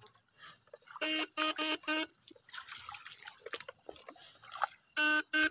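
Short bursts of a steady-pitched electronic buzz: four in quick succession about a second in, and two more near the end.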